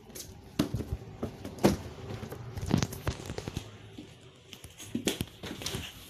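Irregular clicks and taps from a phone being handled, over a faint steady hum.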